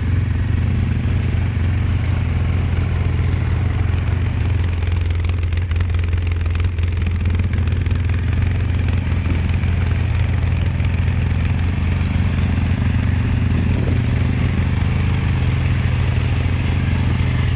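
Suzuki KingQuad ATV engine running steadily as the quad wades through deep muddy water, with water churning around the wheels.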